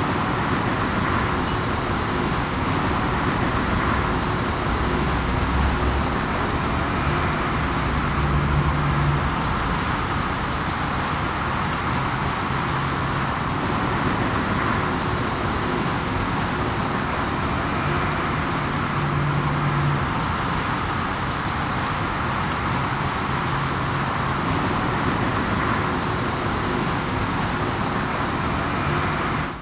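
Steady background noise of road traffic, a continuous even rush that cuts off abruptly at the end.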